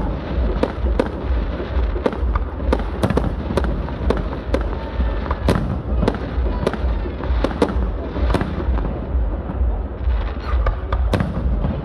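Aerial firework shells bursting one after another in a display, sharp bangs about every half second, fewer near the end, over a steady low rumble.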